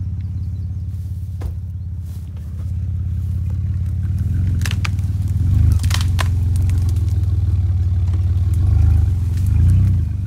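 Jeep Liberty's 3.7-litre V6 running under load as it drives through tall brush, growing louder and rising in revs in a few surges. A few sharp cracks near the middle.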